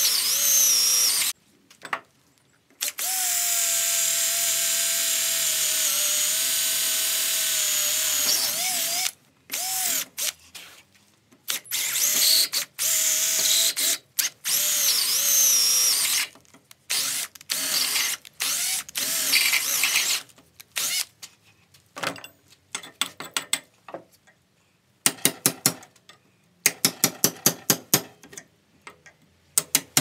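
Hitachi cordless drill boring into a steel bracket in stop-start bursts, one long run about three seconds in, its pitch sagging as the bit bites and picking up again. Near the end, quick metallic taps about five a second from a hammer striking a chisel.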